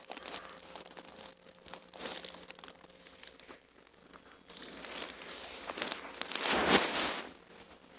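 Crinkling, rustling noise with scattered small clicks, swelling to a louder rustle about six and a half seconds in.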